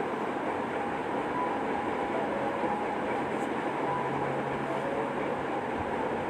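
Gas stove burner running steadily under a pressure cooker being preheated with rock salt, giving a steady rushing hiss with a faint low hum.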